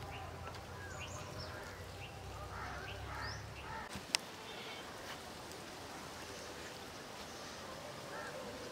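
Birds chirping and calling, short rising and falling notes, busiest in the first few seconds. A single sharp click comes about four seconds in, as a low hum cuts off.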